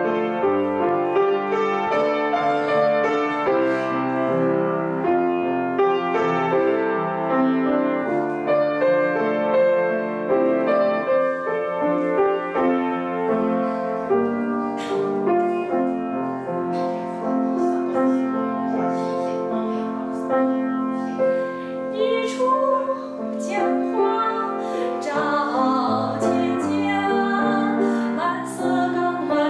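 Piano playing a slow accompaniment passage of many sustained notes. Near the end a woman's singing voice joins it.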